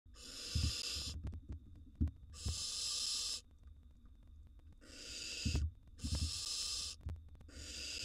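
Barn owl nestlings making their hissing, snore-like calls, about five long hisses each near a second in length. Short low knocks and scuffs fall between them.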